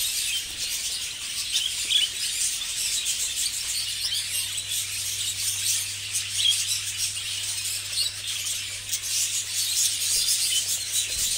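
A large flock of budgerigars in breeding cages chirping and chattering all at once, a dense, unbroken twitter of many overlapping high calls.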